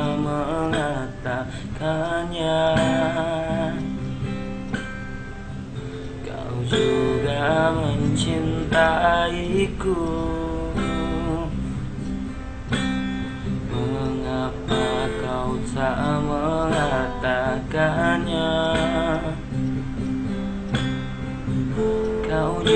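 A man singing a slow ballad to strummed acoustic guitar.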